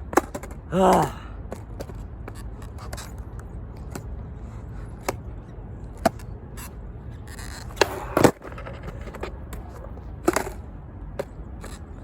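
Skateboard tricks on concrete: a short vocal exclamation about a second in, then scattered sharp clacks and slaps of the board hitting the ground, the loudest about eight seconds in. These are attempts at a pop shove-it that the skater cannot land.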